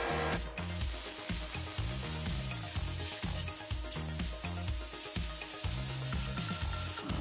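Plasma cutter cutting a metal pipe: a loud steady hiss of the arc that starts about half a second in and cuts off abruptly just before the end. Background music with a repeating bass line runs underneath.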